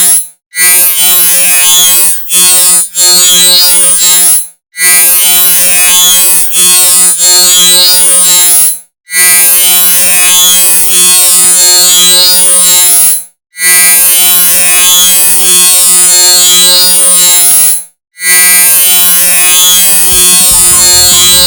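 The 'drunk squirrel laughing' meme sound effect, played loud and repeated over and over. It comes as a steady, pitched tone in about seven stretches of one to four seconds, each split from the next by a short break.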